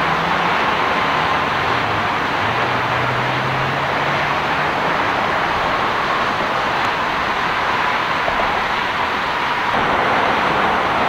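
Dodge Viper's V10 engine running with a low, steady note as the car drives away, fading after about five seconds into a steady wash of road traffic noise.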